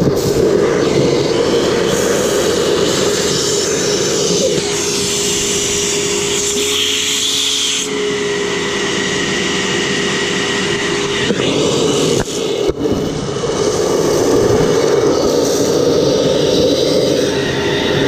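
Upright vacuum cleaner running, its hose sucking dirt out of a clear bagless dust cup. From about 4 to 11 seconds in, the rush of air changes and a steady held tone comes through. The full rush then returns, with a short knock about 12 seconds in.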